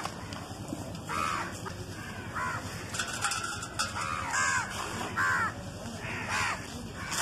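Dry charcoal mudpie with glitter crumbling and crunching between the hands into a pile of charcoal powder. Over it, a bird gives short, harsh calls about once a second.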